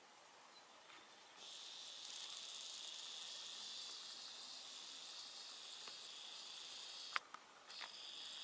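A steady high hiss that starts about a second and a half in, holds for about six seconds and cuts off, followed by a couple of sharp clicks near the end.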